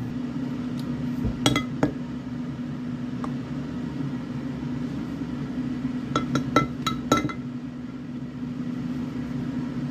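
Light clinks of hard objects knocking together, two within the first two seconds and a quick run of about six a little past the middle, over a steady low hum.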